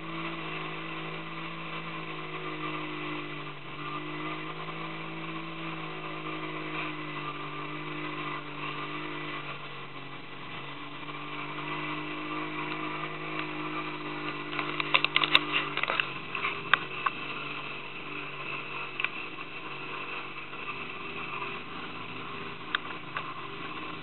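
Small boat's motor running steadily under way, with water noise. A cluster of sharp knocks and clicks comes about two-thirds of the way through.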